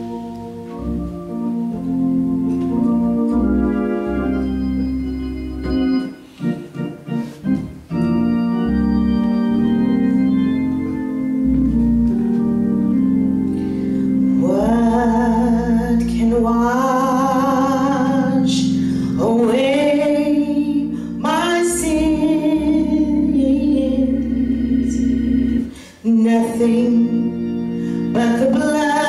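Solo female gospel singing into a microphone over church keyboard accompaniment. The keyboard plays slow, held organ-style chords alone for about the first half, then the woman's voice comes in with a wide vibrato.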